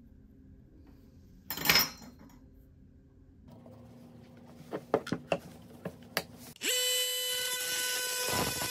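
A loud clack about two seconds in and a few sharp clicks as a blade is fitted to an oscillating multi-tool. Then, near the end, the multi-tool starts with a steady high-pitched whine and its blade is pressed against a steel screw.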